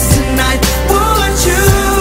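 Pop song recording playing, with sustained pitched lines over a steady beat.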